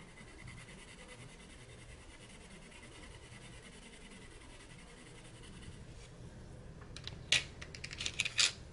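Black Widow Monarch colored pencil scratching faintly on paper as a swatch is shaded in, followed near the end by several sharp clicks and clacks of pencils knocking together as the pencil is put down and the next one is taken up.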